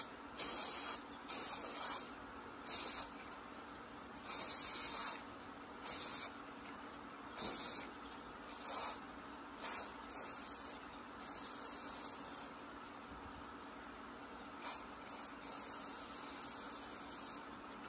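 Aerosol can of UNI foam filter oil spraying onto a foam air filter in a dozen or so short hissing bursts, each from a fraction of a second to about a second long, with short pauses between them, coating the new filter with oil.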